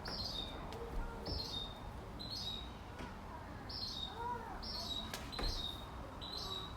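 A bird chirping over and over, about once a second, each chirp a short high note that drops in pitch, over a low steady background rumble.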